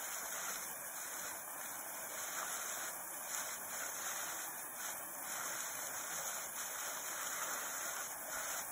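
Steady rush of water from a waterfall, mostly encased in ice and snow, pouring into an open pool below.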